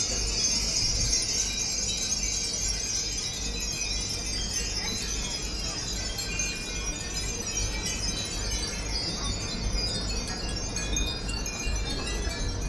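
Many Japanese furin wind chimes ringing together in the breeze: a dense, continuous tinkling of overlapping high bell-like notes, over a steady low rumble.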